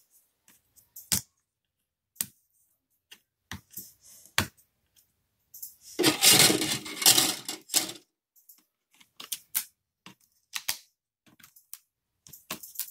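Scattered small clicks and taps of a metal tool and fingers on a laptop's ribbon-cable connector latches as the keyboard cables are disconnected, with about two seconds of rustling, scraping handling noise about six seconds in.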